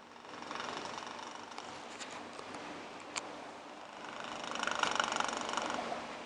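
Domestic cat snoring in its sleep: a raspy, rattling snore that swells and fades with its slow breathing, once about a second in and again, louder, around five seconds.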